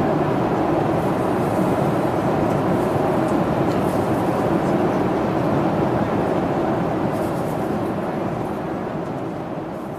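Steady cabin noise of a jet airliner in flight: engine and airflow roar heard from inside the passenger cabin, fading gradually over the second half.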